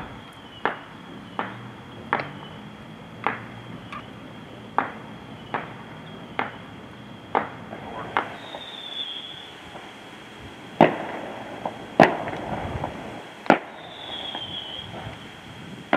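Distant consumer fireworks going off over a town: a string of sharp single bangs at uneven intervals, about one a second at first and sparser later, the loudest two about eleven and twelve seconds in. Two short high falling whistles sound in between.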